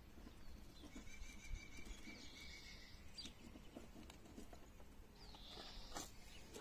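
Faint outdoor quiet with a few high chirps and a couple of light clicks from pliers working a thin cable.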